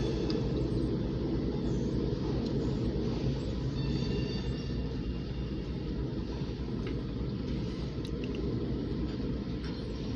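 Freight train running past with a steady low rumble; a faint high tone comes in briefly about four seconds in.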